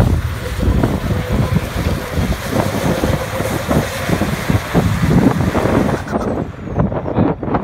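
RAM pickup truck engine working hard as the truck drives through deep mud, with tyres churning the muck. Wind buffeting the microphone adds a heavy low rumble throughout.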